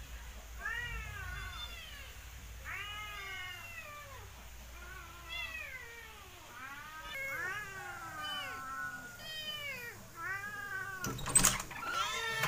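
Domestic cats meowing over and over, a dozen or so rising-and-falling calls, some overlapping from more than one cat. A single sharp knock sounds near the end.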